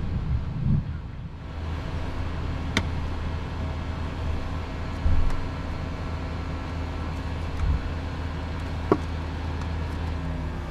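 Learjet 45XR's Honeywell TFE731 turbofan engines running steadily, a constant hum with a layered whine. Two sharp clicks cut through, about three seconds in and near the end.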